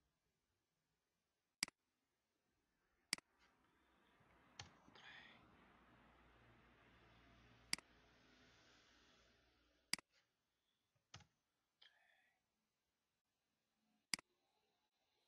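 Computer mouse clicking: about seven single sharp clicks, spaced a second or more apart, over a faint background hiss.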